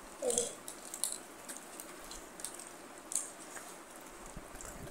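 A person chewing a mouthful of cheesy pizza: faint wet mouth smacks and clicks every second or so, with a brief hummed "mm" just after the start.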